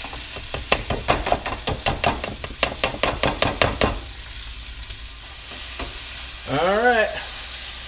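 Raw chicken pieces scraped off a plastic cutting board into a hot frying pan: a quick run of taps and scrapes for about four seconds over a steady sizzle of the chicken starting to fry. A brief vocal sound near the end.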